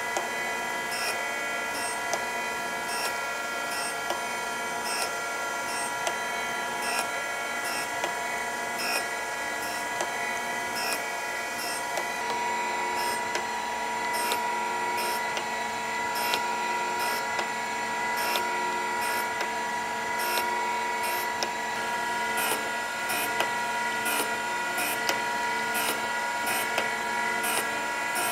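Surface grinder running: a steady whine from the wheel spindle, with short scratchy grinding contacts repeating about once a second as the steel V block passes back and forth under the wheel. The contacts come closer together near the end.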